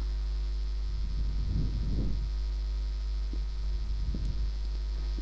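Steady low electrical hum, mains hum picked up on the recording, with faint soft rustling about a second in and a couple of light clicks later.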